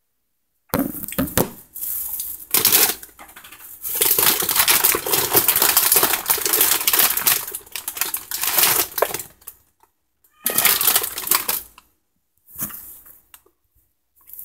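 Close handling noise of a phone: rustling, rubbing and clicking as the phone is moved about with a hand over the microphone. One long stretch, then two shorter bursts near the end.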